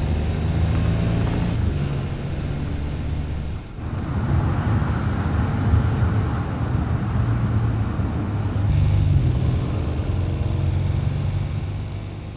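A 2024 Porsche Cayenne driving, its engine and road noise running steadily. The sound changes abruptly about four and about nine seconds in, and fades near the end.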